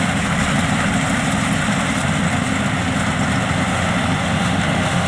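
Yanmar grain-tank combine harvester running steadily, its diesel engine and threshing machinery working as it cuts rice.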